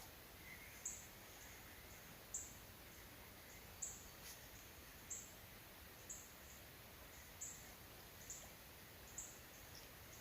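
Faint high chirps from a small animal, repeating about once every second or so.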